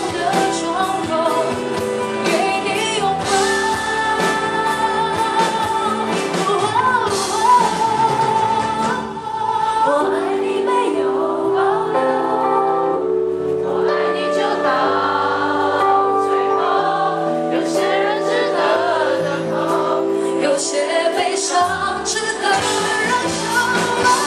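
A woman singing a pop ballad live into a handheld microphone, with band accompaniment that thins out briefly mid-way and then builds again.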